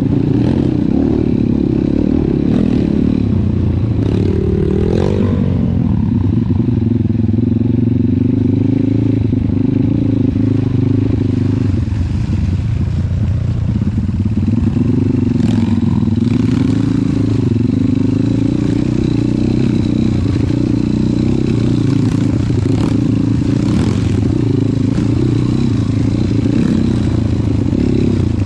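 Trail motorcycle engine running under varying throttle, its pitch rising and falling as it revs, with a few short knocks and clatter mixed in.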